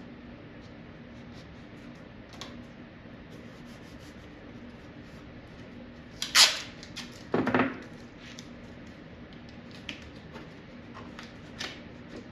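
Masking tape ripped off the roll twice near the middle, a short sharp rip then a longer one, amid light clicks and rustles of a thin clear plastic sheet being handled and taped.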